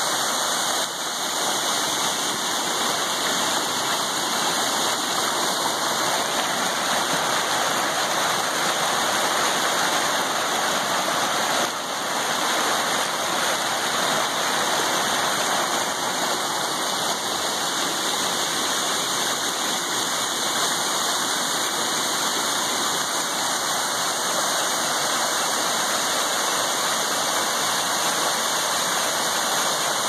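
Steady rush of creek water tumbling over rocks, along with a small waterfall pouring into a pool below it.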